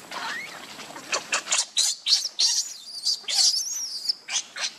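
Baby macaque screaming: a rapid string of short, shrill squeals that slide up and down, with one longer, wavering, very high cry about three seconds in. These are an infant monkey's distress cries.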